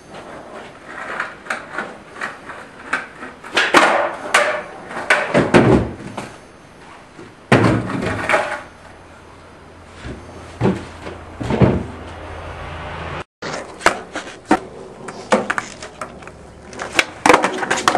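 Skateboard tricks on concrete: the board's tail pops, the deck clacks and flips, and the wheels slap down on landings, over and over, with short bits of wheel roll between. The sound cuts out briefly a little past halfway, then the clacks and landings go on.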